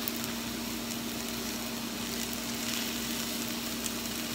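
Sliced zucchini and yellow squash sizzling steadily in hot oil in a skillet, with a steady hum underneath.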